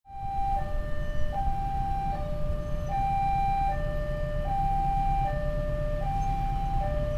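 Railway level-crossing warning alarm sounding: an electronic two-tone that steadily alternates between a higher and a lower tone, each held for about three-quarters of a second.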